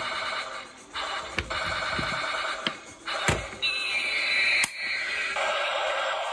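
Battery-powered toy tank's electronic sound effects, triggered by pressing its button: buzzy electronic firing bursts, then a falling whistle and a noisy blast near the end. Sharp plastic clicks come between the bursts.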